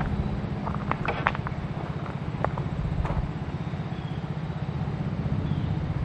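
An engine running steadily in the background: a low, evenly pulsing rumble. A few light clicks come about a second in and again about two and a half seconds in.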